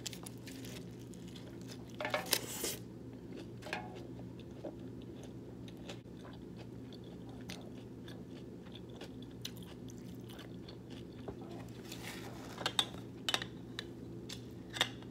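Close-up chewing and mouth sounds of a person eating, with a few sharper crunchy clicks about two seconds in and again near the end, over a steady low hum.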